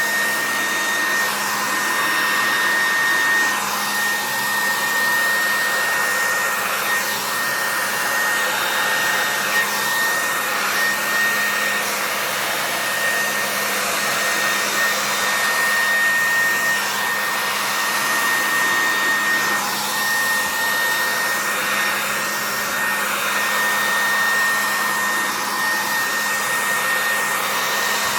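Handheld hair dryer running steadily, blowing fluid acrylic paint across a canvas to spread the colours, with a constant high whine over its rushing air.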